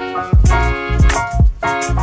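Background music with a steady beat of low drum hits, about two a second, under sustained chords.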